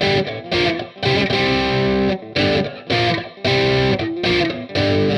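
Telecaster-style electric guitar playing chords in a choppy rhythm, each one cut short by a brief gap, with the last chord left ringing.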